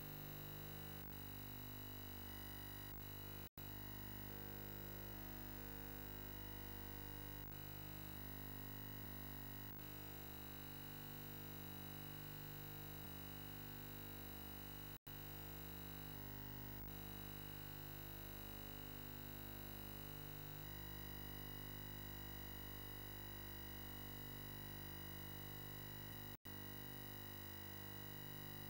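Faint, steady electronic hum and buzz made of several held tones over a light hiss. The mix shifts now and then, and the sound cuts out for an instant three times.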